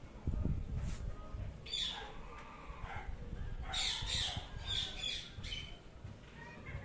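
Indian ringneck parrot giving several short, high squawks, one about two seconds in and a quick run of them a couple of seconds later. A low rumble near the start is louder than the calls.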